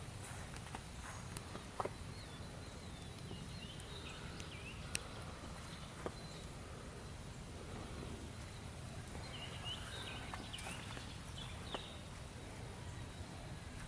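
Birds chirping in short bursts over a steady low rumble, with a few sharp clicks.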